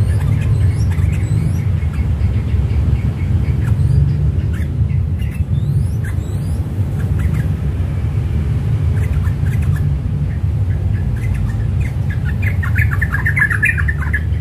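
Yellow-vented bulbul calling: scattered short chirps, then a rapid chattering run of notes near the end, over a steady low rumble.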